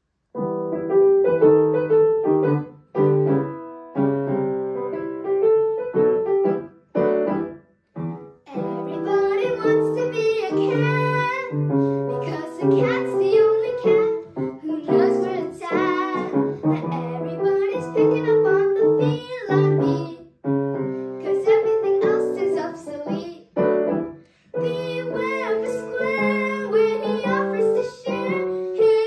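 A young girl singing to piano accompaniment. The piano plays alone for the first eight seconds or so, then her voice comes in with vibrato over the chords.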